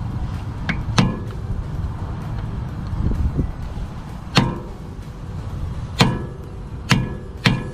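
Hammer striking a punch five times at uneven intervals, sharp metallic hits each with a short ring, staking the collar of the 36mm axle nut into the grooves of a Honda CR-V's driveshaft so the nut cannot spin loose.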